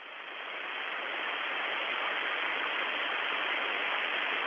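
Steady hiss of static on an open radio channel, swelling over the first second and then holding level, muffled with nothing in the upper treble.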